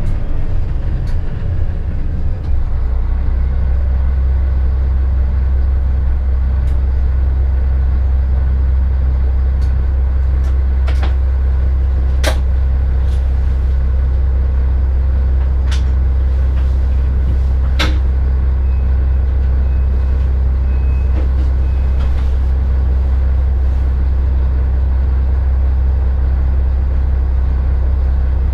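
Class 650 Regio-Shuttle diesel railcar drawing to a halt about two seconds in, then standing with its underfloor diesel engine idling in a steady low drone. A few sharp clicks sound partway through.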